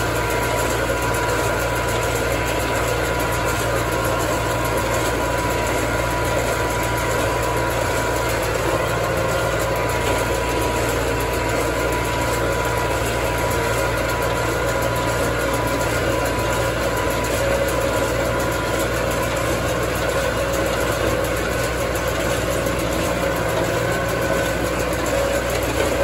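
Tractor engine running steadily with a small-square hay baler working behind it, a steady whine over the engine noise.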